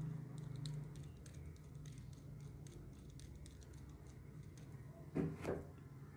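Small clicks and taps of a flexible-shaft porting tool's handpiece and a thin metal bit being fitted together by hand, with two louder clicks about five seconds in, over a low steady hum.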